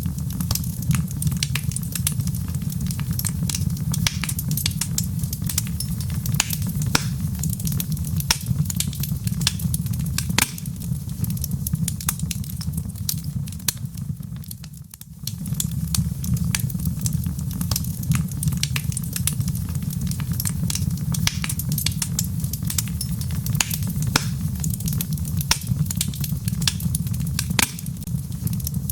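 Wood fire burning in a fireplace, crackling and popping with many sharp irregular snaps over a steady low rumble. The sound dips briefly about halfway through, then comes back.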